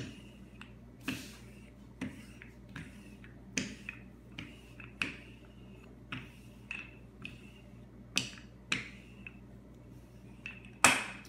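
Old wooden rolling pin rolled back and forth over pie dough on a granite countertop, giving irregular light clacks and knocks, about one a second, with the loudest near the end.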